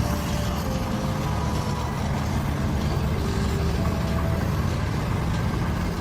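Loud, steady engine rumble of a heavy vehicle or machine, with a faint background melody under it.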